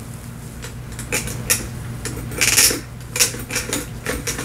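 Irregular light metallic clicks, clinks and short scrapes of a small metal sewing machine and its parts being handled, over a steady low hum.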